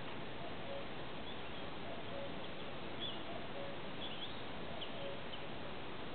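Small birds chirping briefly a few times over a steady hiss, with a short low note repeating about every three-quarters of a second.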